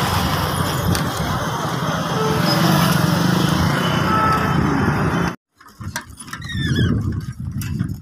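Busy city street traffic heard from a moving cycle rickshaw: scooter and motorbike engines and road noise. About five seconds in the sound cuts off abruptly, then comes back quieter with a few short high squeaks.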